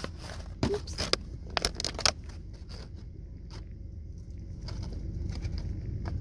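A few sharp clicks and scrapes from hands handling things in the first two seconds, then only a steady low rumble of the car interior.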